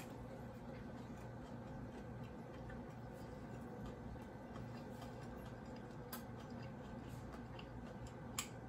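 Quiet room tone: a steady low electrical hum with a few sharp small clicks, about three, the loudest near the end.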